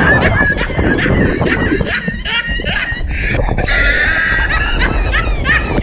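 People shrieking and laughing, a high held scream over rapid bursts of laughter.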